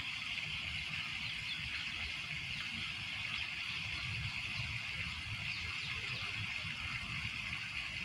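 Lake ambience: small waves lapping, heard as a steady wash of water noise with a fluttering low rumble underneath.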